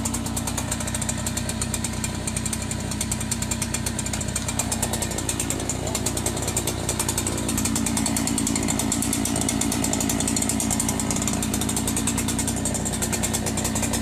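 Petrol chainsaw running at high revs as it cuts into a large log, growing louder about halfway through.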